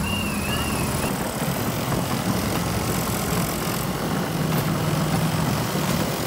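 Solex mopeds' small two-stroke engines running steadily as the riders pass, with a short warbling whistle right at the start.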